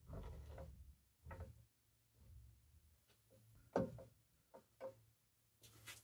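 Faint, scattered clicks and light knocks of handling at a milling machine setup, the sharpest click just before four seconds in, over a low steady hum.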